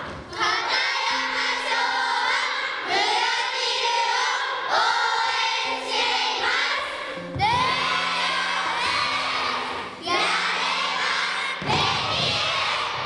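A large group of schoolchildren calling out cheer phrases in unison, one loud phrase every couple of seconds, over background music with held low notes.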